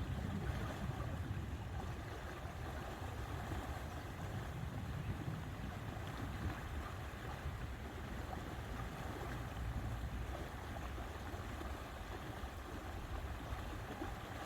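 Steady lakeside ambience of wind and water, with wind rumbling on the microphone. It is slightly stronger in the first couple of seconds.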